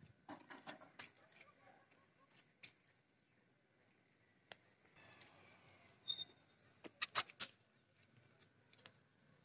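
Quiet outdoor ambience: a faint steady high-pitched insect drone, with scattered soft clicks and a short run of sharper clicks about seven seconds in.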